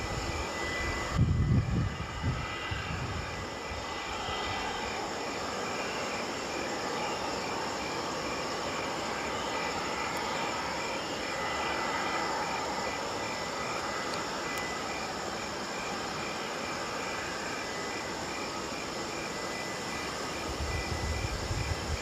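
Air Canada Boeing 787-9 Dreamliner's jet engines running at taxi power as it rolls past: a steady jet whine with a thin high tone. Brief low rumbles come about a second in and again near the end.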